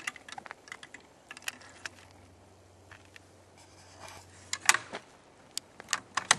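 Light clicks and rattles of things being handled, scattered through, with a few sharper clicks between about four and a half and six seconds in.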